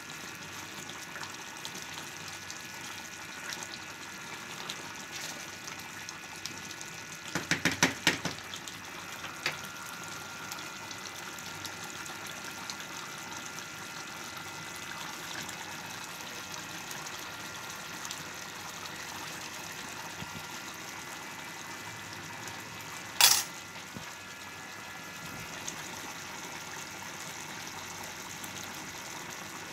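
Chicken curry simmering in a wok, bubbling steadily. A quick rattle of clicks comes about seven seconds in, and a single sharp metallic clink about 23 seconds in.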